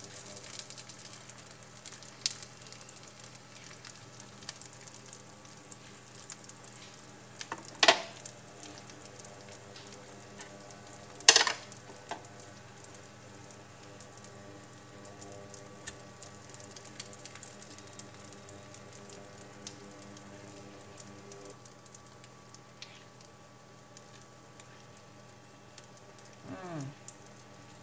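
Rice paper topped with egg and sausage frying in oil in a nonstick pan over turned-down heat: a steady low sizzle with fine crackling. Two sharp knocks about eight and eleven seconds in, the second the loudest.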